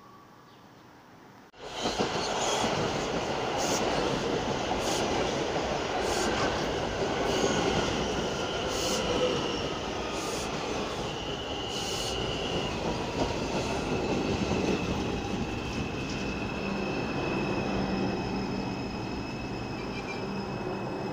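A New York City Subway R142 train pulling into a station. The sound comes in suddenly about a second and a half in: the wheels rumble and click over the rail joints under a high wheel squeal. Near the end the steady whine of the traction motors comes up as the train slows.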